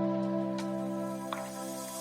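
Background music with long held chords.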